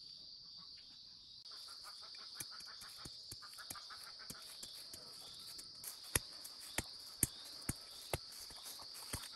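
A hand tool digging and chopping into soil around a wild bamboo shoot: scraping and small knocks from about a second and a half in, then five sharp strikes about half a second apart near the middle. Insects chirr steadily and high-pitched underneath.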